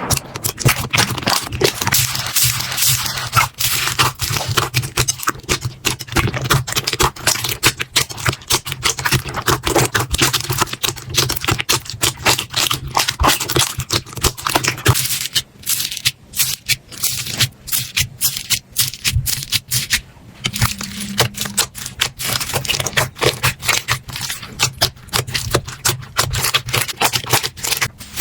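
Slime being squeezed, pressed and stretched by hand, giving a rapid, irregular run of crackling clicks and pops with some scraping.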